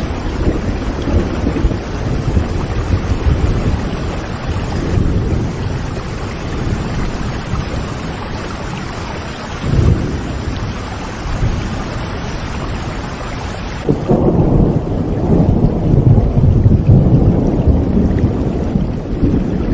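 Thunderstorm: steady rain with low rolling thunder. About fourteen seconds in, the rain hiss suddenly thins and a heavier thunder rumble takes over.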